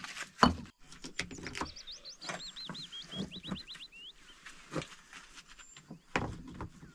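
A string of irregular knocks and clunks, the loudest about half a second in and another about six seconds in. A small bird sings a quick run of rising and falling chirps from about a second and a half to three and a half seconds in.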